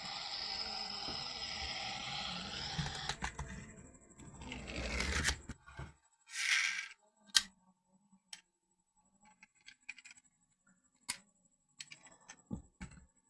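Handling noises: a few seconds of rustling and scraping, a swelling swish, then scattered sharp clicks and taps.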